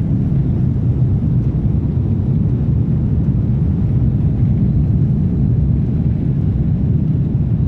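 Steady low rumble of an airliner's engines and airflow, heard from a seat inside the passenger cabin.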